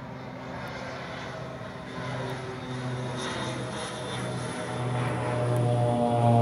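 Airplane on approach to land passing low overhead, its engine noise growing steadily louder.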